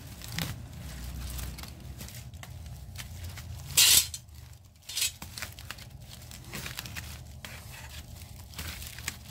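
Screwdriver prying copper tubes out of a crushed aluminium radiator fin pack: thin aluminium fins crinkling and tearing, with one loud sharp scrape about four seconds in and a shorter one about a second later.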